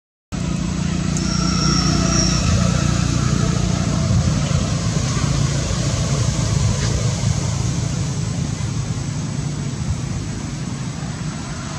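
Steady low rumble of a motor vehicle's engine running nearby, holding an even level. A brief faint high tone sounds about a second in.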